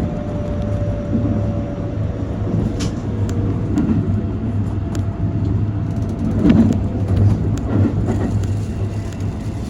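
Keikyu Main Line train running: a steady low rumble, with a faint whine that slides slightly down in pitch over the first few seconds and scattered clicks.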